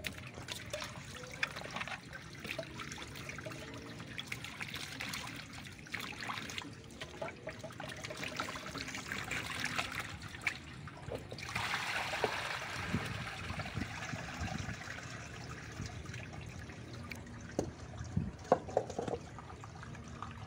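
Water trickling and splashing, with scattered small knocks and clicks; the splashing grows louder for a few seconds around the middle.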